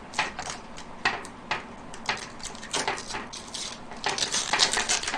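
Plastic wrapping crinkling and crackling in irregular bursts as it is pulled off a computer motherboard, denser near the end.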